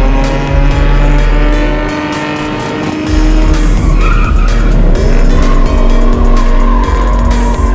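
A car doing a burnout: engine held at high revs and tyres squealing, dipping briefly about two seconds in. Music with a heavy bass beat plays over it.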